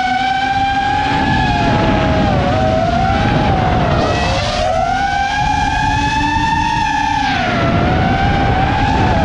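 Custom-built FPV quadcopter's brushless motors and propellers whining, the pitch rising and falling with the throttle and dropping briefly about four seconds in and again near the end, with wind rumble on the camera's microphone.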